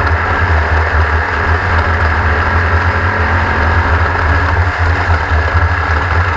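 An engine running steadily with a low, rough rumble.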